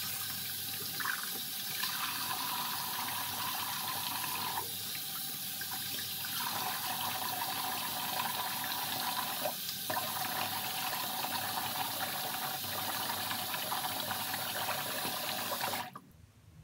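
Water running steadily from a bathroom sink tap into the basin, an even rush that stops abruptly near the end.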